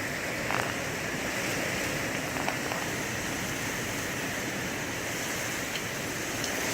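Heavy wind-driven rain in a strong storm: a steady rushing noise of wind and rain.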